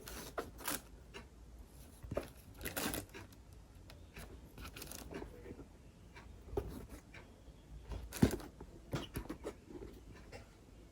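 Hands handling a pair of sneakers and their packaging: scattered rustling and crinkling with light taps, and one sharper tap about eight seconds in.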